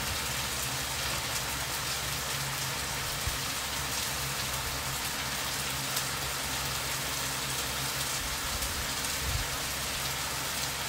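Chicken, bacon and mushrooms sizzling on a hot Blackstone flat-top griddle: a steady hiss with fine crackle and a low hum underneath.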